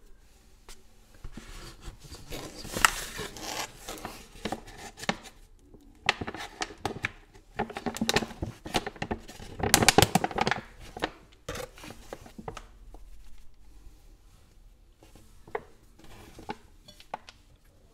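Paper pouch of granulated Chinese herbal powder crinkling and rustling while a metal spoon scoops the granules and tips them into a glass beaker, with scattered small clicks and taps. The rustling comes in two main spells, the louder one near the middle.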